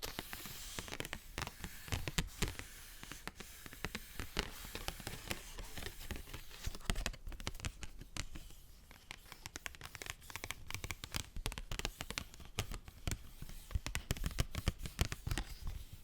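Paper being handled and crinkled, a dense, irregular crackle of many small snaps.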